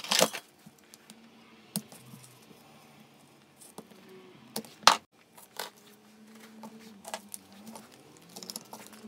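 Scattered sharp clicks and taps of small metal impact-driver parts being handled and worked with a hand tool, the loudest just after the start and about five seconds in.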